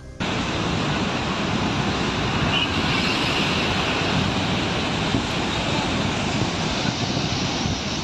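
Rushing floodwater: a loud, steady rushing noise with no distinct tones, cutting in suddenly just after the start.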